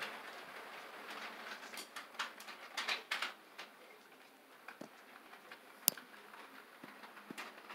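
HO scale model freight train running on, its wheels clicking irregularly over the rail joints; the clicking thins out after about four seconds. One sharp click near the end is the loudest sound.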